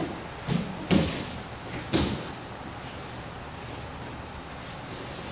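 An aikido partner thrown down and taking a breakfall on the mats: three thuds and slaps of body and hands on the mat within about two seconds, the second the loudest.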